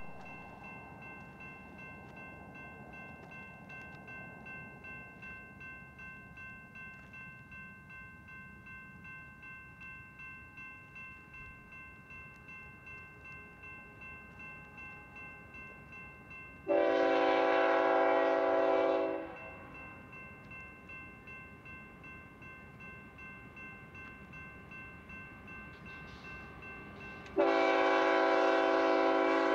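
Grade-crossing warning bell ringing steadily at about three strokes every two seconds, signalling an approaching train. Twice the approaching BNSF freight locomotive's air horn sounds a long chord-like blast: one about two-thirds of the way in lasting about two and a half seconds, and another starting near the end.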